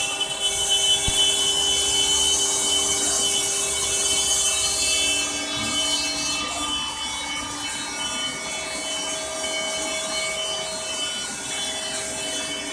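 LulzBot TAZ 3D printers running a print: stepper motors whine in several steady tones that shift as the print head and bed move, over the whir of cooling fans.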